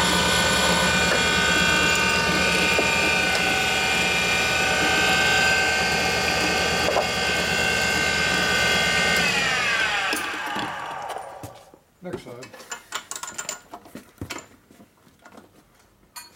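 Valve refacing machine running with a steady many-toned whine while grinding an engine valve face. About nine seconds in it is switched off and winds down, falling in pitch until it stops, followed by a few light metal clinks and knocks as parts are handled.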